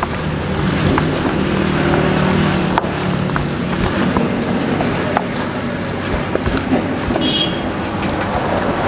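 Hands tossing and working raw chicken pieces in dry spice powder inside a tub: irregular rustling and wet handling noise with small knocks, over a steady low background hum.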